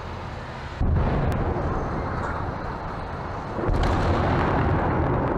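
Two heavy explosions, the first about a second in and the second about three seconds later, each a sudden blast that runs on into a long low rumble.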